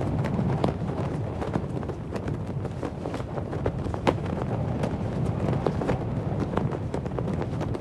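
Cloth flag flapping in the wind: a steady low rush of wind with irregular sharp snaps and cracks of the fabric, several a second.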